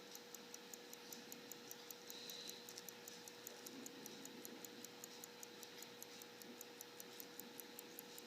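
Antique Appleton, Tracy & Co. pocket watch movement ticking faintly and evenly, about five ticks a second, its balance running. A steady faint hum lies under it.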